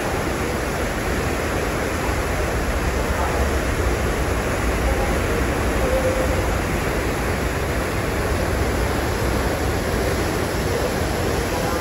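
Propeller wash of the ferry MV Bretagne: a steady rushing of churning, foaming water at the stern, with a low rumble underneath.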